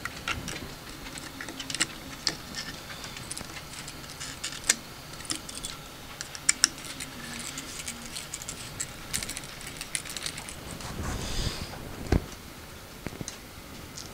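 Irregular small clicks and taps of a screwdriver, screws and plastic parts as a fan is screwed back onto a 3D printer's print head, with a single louder low knock near the end.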